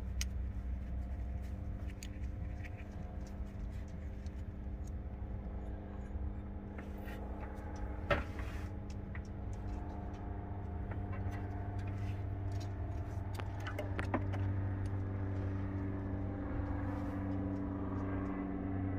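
Scattered light metallic clicks and taps of a small ratchet and tools as the camshaft retainer bolts go in on a Ford 5.0 V8 block. Underneath is a steady low mechanical hum, with one sharper knock about eight seconds in.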